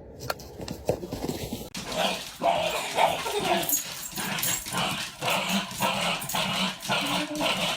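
A dog vocalizing over and over in quick, broken calls, starting about two seconds in after a few short clicks.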